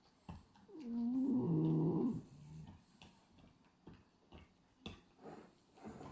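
French bulldog snoring in its sleep: one long pitched snore about a second in, lasting about two seconds, with the next snore starting at the very end and a few faint clicks between.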